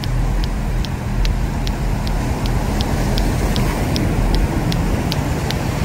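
Latto-latto clacker balls knocking together in a steady rhythm, about two and a half clacks a second. Under it runs a loud, steady low roar of heavy surf and wind.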